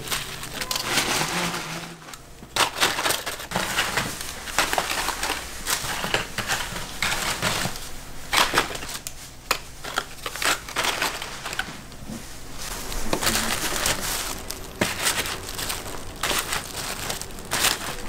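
Crisp fried snacks (twigim) being handled in a snack-shop kitchen, crunching and crackling in irregular sharp strokes.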